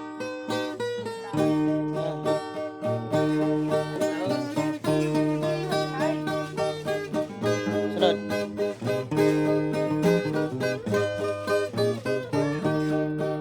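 Music led by a plucked string instrument like a guitar, notes changing in a steady pattern.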